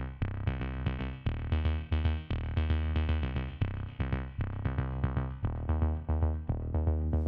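Electronic background music with a drum-machine beat, synthesizer notes and a strong bass line.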